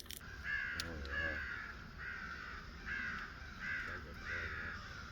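Crow cawing: a series of about six harsh caws, roughly one every three-quarters of a second.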